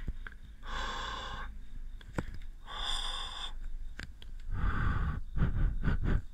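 Two soft breaths close to a dummy-head binaural microphone, each about a second long, then low rumbling and rustling from about four and a half seconds in.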